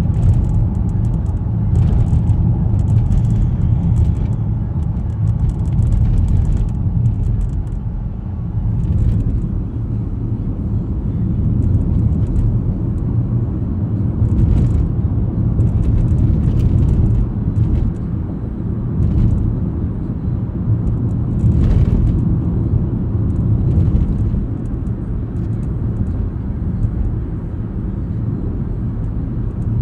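Road and engine noise inside a moving car's cabin: a steady low rumble that swells and eases slightly, with scattered faint clicks.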